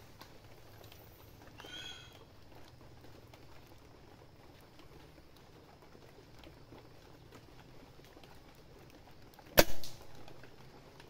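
A single shot from a moderated air rifle near the end: one sharp crack with a short tail, fired while sighting the rifle in at a longer distance.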